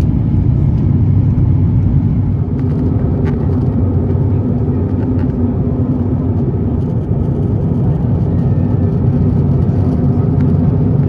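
Steady low drone of cabin noise inside an Airbus A350-900 climbing out: the Rolls-Royce Trent XWB engines and the airflow over the fuselage, with a few faint clicks.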